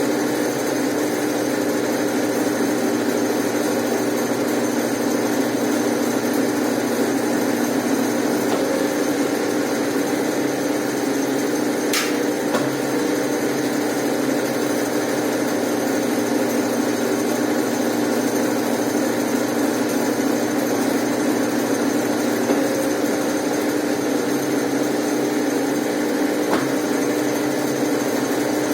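Brastemp Ative 11 kg top-loading washing machine running steadily, its motor giving a constant hum. A single short click comes about twelve seconds in.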